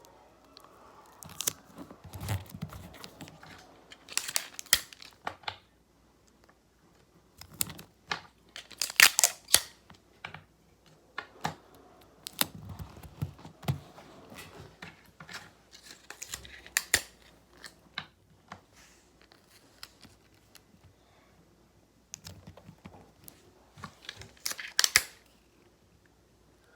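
Close-up handling noises: scattered sharp clicks and taps with short scraping, tearing-like bursts, coming in clusters with quiet gaps between them.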